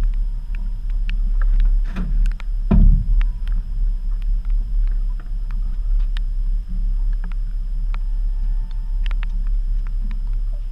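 Steady low rumble of a fishing boat's motor, with scattered clicks and knocks of gear being handled and one loud thump about three seconds in.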